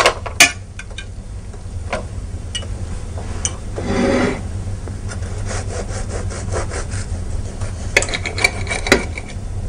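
Knife sawing back and forth through a pressed, toasted panini, the crisp crust rasping under the blade, with a few sharp taps of the knife on the plate.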